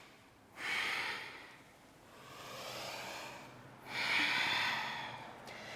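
A person breathing audibly through the transition: three long breaths, the first starting sharply about half a second in, the middle one softer.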